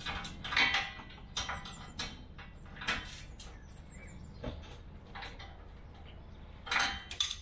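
Spanner working the bolts on a bullbar's mounting bracket: irregular metallic clicks and scrapes, with a louder cluster near the end.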